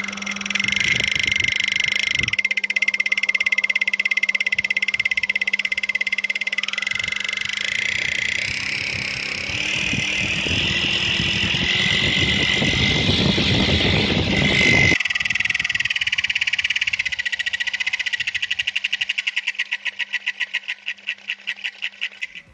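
Homemade electric lawn mower's motor spinning a 3D-printed trimmer head with nylon line: a steady high whine over a low hum, with a rushing noise that cuts off about fifteen seconds in. After that the whir pulses, slower and slower, and fades as the head winds down.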